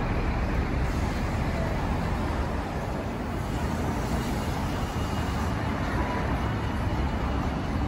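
Steady traffic noise from a busy city street, a constant low rumble of passing cars.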